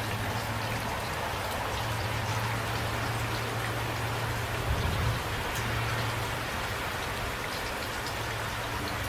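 Steady light rain: an even hiss with individual drops ticking through it, over a steady low hum.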